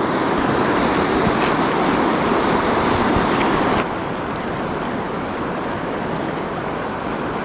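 Steady rushing of river water, an even hiss without tones, which drops a little in level abruptly about four seconds in.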